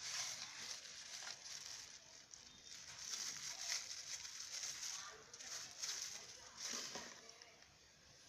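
Plastic packaging crinkling and rustling in irregular bursts as the monitor's parts are unwrapped and handled, dying down near the end.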